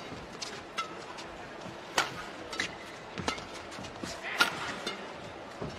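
Badminton rally in a large hall: a series of sharp racket strikes on the shuttlecock, the loudest about two seconds in and again a little past four seconds, over a low steady hall background.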